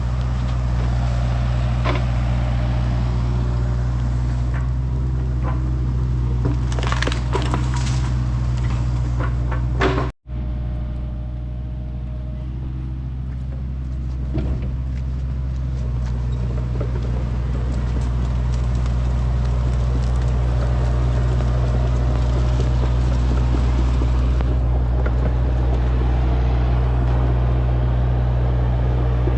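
Excavator's diesel engine running steadily, with a cluster of sharp cracks and knocks a few seconds in. The engine grows somewhat louder in the second half.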